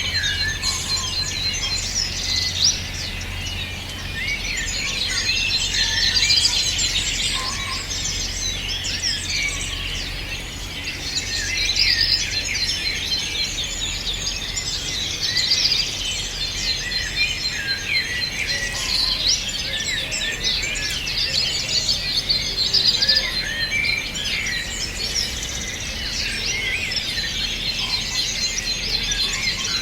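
A dense chorus of many songbirds chirping and singing over one another without a break, with a steady high trill running through it and a low hum underneath.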